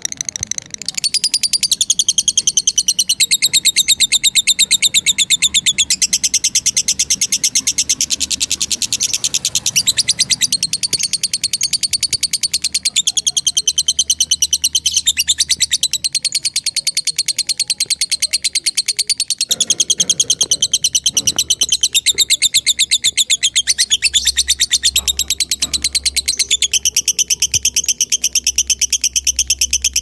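Masked lovebird giving a long, unbroken ngekek: a loud, high, very rapid chattering trill of many notes a second that shifts pitch every few seconds.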